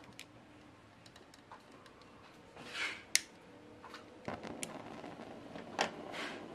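Butane gas torch being lit with a disposable lighter: several sharp clicks and a short hiss of gas, then the torch flame catches a little over four seconds in and burns with a steady rushing hiss that grows louder.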